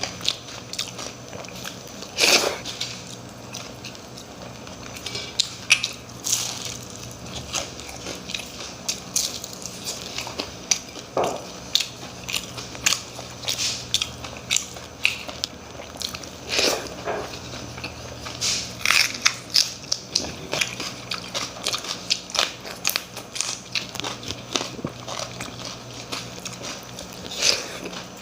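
A person eating close to the microphone: irregular crunchy bites and chewing of crisp food, with a few louder sharp cracks.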